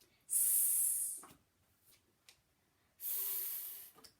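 A person's voice twice drawing out a long hissed consonant sound, like "sss", each lasting about a second, as in saying phonics sounds aloud.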